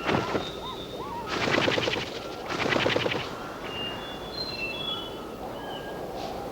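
Two quick rattling bird calls, each under a second, with short rising whistled notes just before them and thin whistled songs of other forest birds around them.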